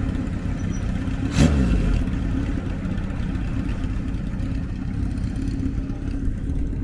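A vehicle engine running steadily, with one sharp crack about a second and a half in; the engine sound eases off slightly toward the end.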